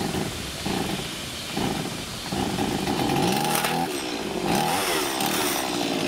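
Two-stroke chainsaw being pull-started: a few quick pulls of the starter cord, then the engine catches a little after two seconds in and runs, revving up and down.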